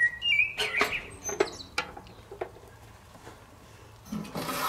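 Short, high chirping notes in the first half second, then a few light clicks and knocks.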